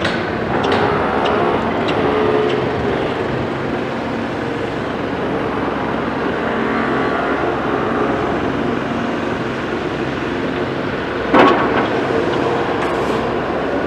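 Caterpillar 336 hydraulic excavator's diesel engine running steadily under load as it digs sand, swings and empties its bucket into a dump truck. A few clicks and scrapes near the start as the bucket digs, and one sharp bang about eleven seconds in as the load lands in the truck's steel tipper body.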